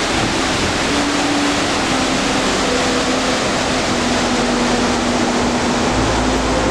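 Loud, steady rush of fast-flowing water from a mountain stream or waterfall: an even hiss that does not let up.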